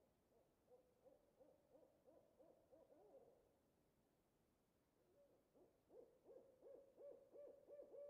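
An owl hooting in two quick runs of short hoots, about three a second: one in the first three seconds, then a louder one from about five seconds in to the end.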